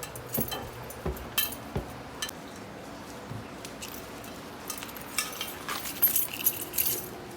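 Scattered clinks and rattles of small hard objects being handled, with a cluster of sharper clinks about five to seven seconds in.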